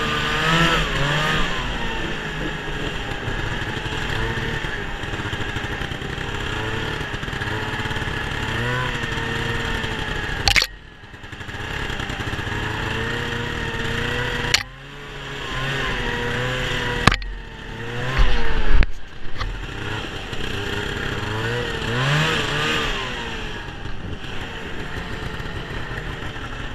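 1971 Ski-Doo TNT 640 snowmobile's two-stroke twin running under way, its pitch rising and falling with the throttle. The engine sound drops off sharply three times with a click, and there are a few loud knocks about two-thirds of the way through.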